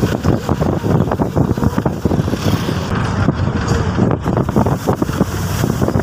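Wind buffeting the microphone: a loud, gusty rumble that swells and drops irregularly.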